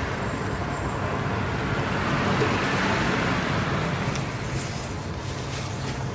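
Steady road traffic noise, with motor vehicles rumbling by.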